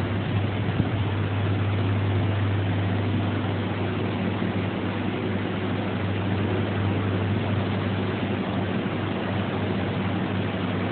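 Steady low mechanical hum with a broad hiss over it, unbroken, with one small knock about a second in.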